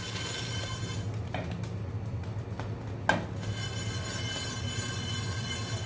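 Coriander seeds sliding and rattling in a frying pan as it is shaken over a gas burner, dry-roasting, over a steady rushing noise. A light knock of the pan comes about a second and a half in, and a sharper one about three seconds in.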